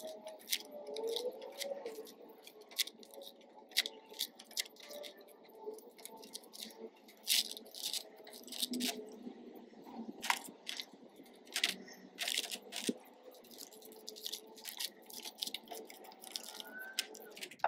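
Single-edge razor blade scraping and slicing excess paper off the rim of a plastic salt cartridge: a run of irregular small scratching clicks and crinkles.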